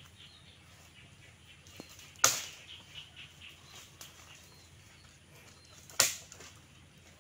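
Dry branches snapping as they are broken off by hand: two sharp cracks, about four seconds apart.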